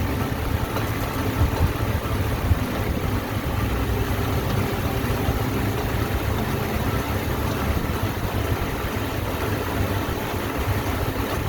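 Truck engine idling under the hood, with an intermittent clunking from the engine's compressor that the mechanic judges to be failing and in need of replacement.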